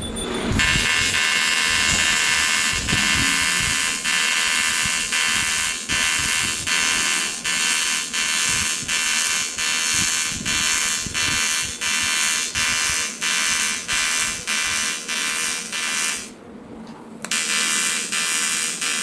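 AC TIG welding arc on aluminium, a harsh steady buzz pulsing regularly about twice a second. The arc breaks off about 16 seconds in and is struck again a second later.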